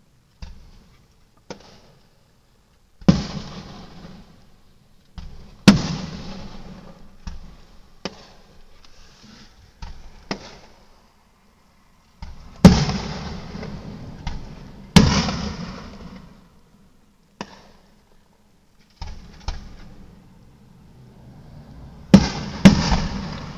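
Aerial firework shells bursting in the sky: a series of sharp booms at irregular intervals, some small and some loud. Each loud boom trails off over a second or two, and two loud booms come close together near the end.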